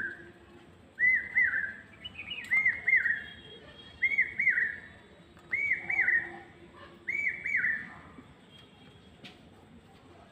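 A bird calling: a short phrase of two or three high, arching notes, repeated about every second and a half, six times, then stopping.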